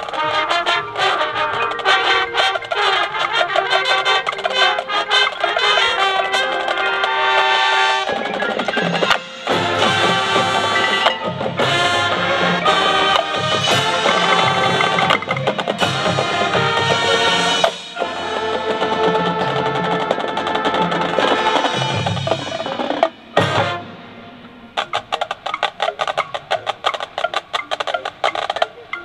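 A high school marching band playing a field show, brass over drums. About 23 seconds in the horns cut off and only the percussion carries on, quieter, with rapid sharp clicks.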